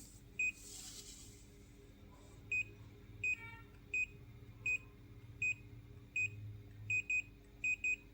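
Daikin inverter air conditioner's indoor unit giving short, high beeps, about ten of them at uneven intervals and some in quick pairs near the end. Each beep answers a press of the remote's cancel button while the unit steps through its error codes. A faint low hum runs underneath.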